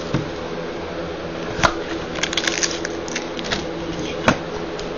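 Hands opening a sealed trading-card box: scattered crinkles of its plastic wrap and cardboard, with two sharper clicks, one at under two seconds and one past four seconds. A steady low hum runs underneath.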